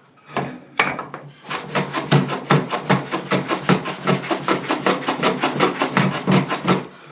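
Hand tool working the end of a beech board to square it: a couple of scattered strokes, then a fast, even run of rasping strokes, about five or six a second, that stops just before the end.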